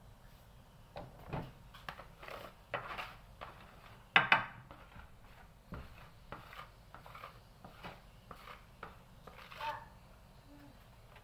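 Irregular knocks and clatter of kitchen work on a bakery work surface, with the sharpest knock about four seconds in.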